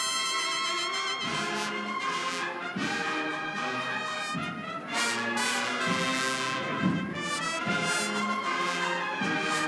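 Spanish Holy Week cornet and drum band playing a processional march: blaring cornets holding and changing notes over a steady drum beat.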